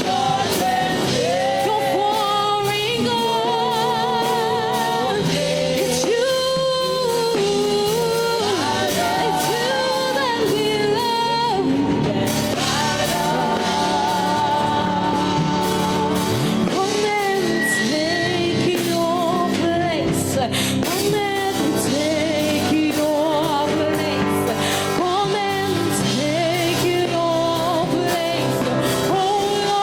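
Live worship music: a voice singing a flowing melody with vibrato over sustained instrumental chords from a band.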